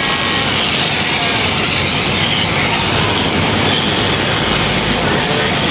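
Electric sheep-shearing handpiece running steadily through fleece.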